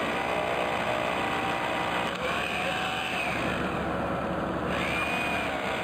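Corded hammer drill with a masonry bit boring into a stone plinth, its motor running steadily.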